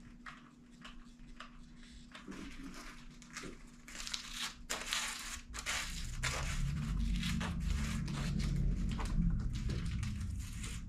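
A plastic paintbrush handle scraping and rubbing hot glue across mesh drywall tape on a carpet, in many quick strokes. A low rumble joins about six seconds in and grows louder.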